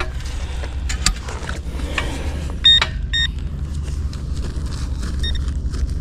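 Metal detector sounding short high-pitched beeps, two of them a little under three seconds in and a fainter one near the end, signalling buried metal targets. A steady low rumble runs underneath, with a few clicks about a second in.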